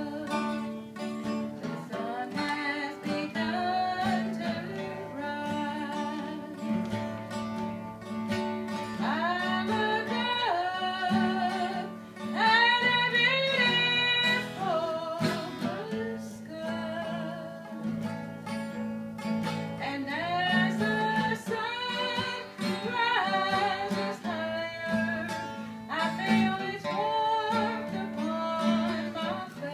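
Acoustic guitar strummed while a man and a woman sing a song together; the singing rises loudest about halfway through.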